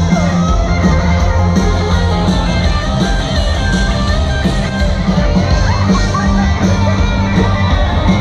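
Live rock-and-roll band playing with guitar over a steady, heavy bass line.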